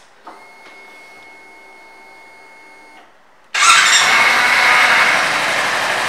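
Kawasaki Versys-X 300's parallel-twin engine being started: first a faint steady whir as the fuel pump primes with the ignition on, then about three and a half seconds in the engine fires suddenly and settles into a steady idle.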